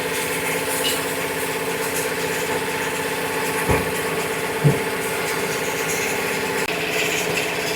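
Tyre-changing machine running with a steady mechanical hum while a tyre is mounted on the wheel. Two short knocks come about a second apart near the middle.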